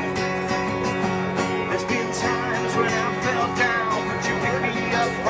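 Acoustic guitar strummed in a steady rhythm at the opening of a live song. A wavering melody line joins above it about two seconds in.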